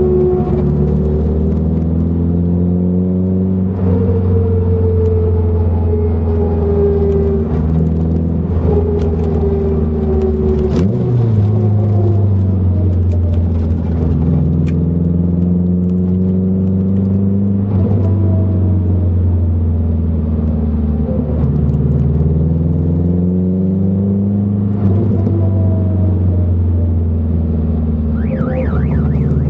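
Nissan 240SX (S14) driving, its engine note repeatedly rising under throttle and falling away off throttle. On the let-offs a whine/hum from the freshly installed viscous limited-slip rear differential, which the owner fears is a bad diff or worn wheel bearings.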